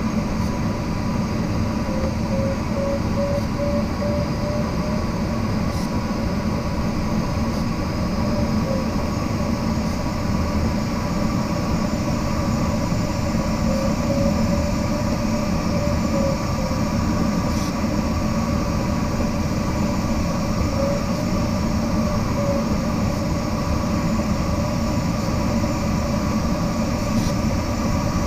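Steady rush of airflow through a glider cockpit while flying fast at about 80 knots, with a faint wavering tone that comes and goes.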